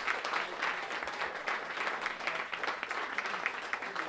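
Audience applauding: dense, steady clapping with single sharp claps standing out.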